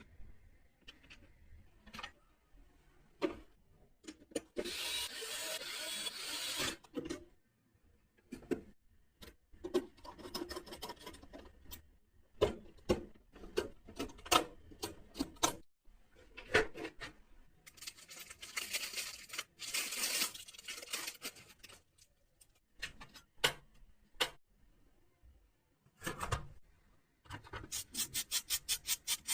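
Computer parts being handled and fitted during a PC build: rubbing and scraping, with scattered clicks and knocks. Near the end comes a run of quick, even clicks, about eight a second.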